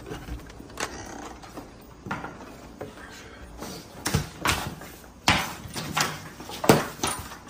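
An alligator held on a catch pole, thrashing and being dragged across a concrete floor: irregular scraping and knocking of its body and claws on the concrete, coming thicker and louder from about halfway through.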